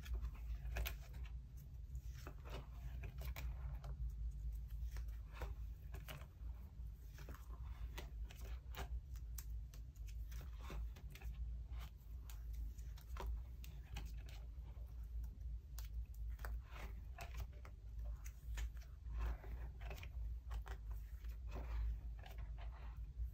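Clear plastic binder pocket sleeves crinkling and rustling as the pages of a ring binder are turned by hand, with many small irregular clicks and taps, over a steady low hum.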